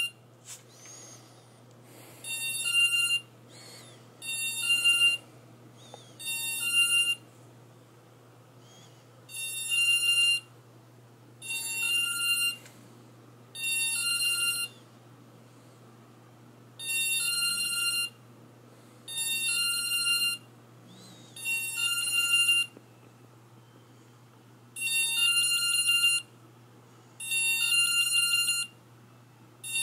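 Multirotor drone's electronics (ESCs and flight controller) beeping during ESC throttle calibration with the throttle held full. The beeps come in roughly one-second groups of rapid high beeps, repeating every two to three seconds.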